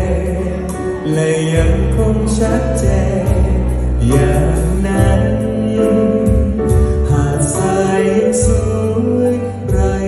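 Instrumental break in a slow Thai pop ballad, with no singing: a steady drum beat with cymbals, a bass line moving every second or so, and sustained chords.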